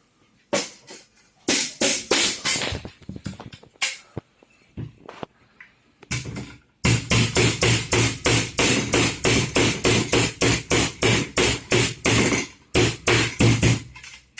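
Euro notch hinge being tapped down into the groove of its profile: a few irregular taps at first, then a fast, steady run of sharp taps about three a second from about halfway through.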